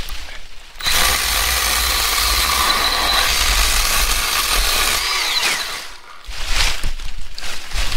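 Milwaukee M12 FUEL Hatchet 6-inch cordless pruning saw, a battery chainsaw with a brushless motor, cutting through a log. It comes up to speed about a second in, runs steadily with a high whine for about four seconds, then winds down with a falling pitch. A few short knocks follow near the end.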